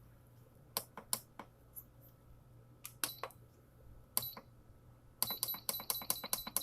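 Electric pressure cooker's control panel beeping as its buttons are pressed to reset the cook time: a few separate short beeps, then a quick run of beeps, several a second, from about five seconds in.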